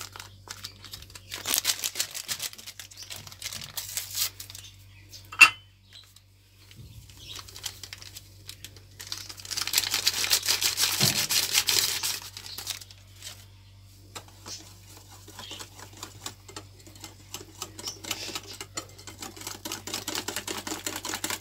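Wire whisk beating cake batter in a glass bowl: fast runs of light clicks and scrapes against the glass, in several spells. One sharp click stands out about five seconds in, followed by a brief pause.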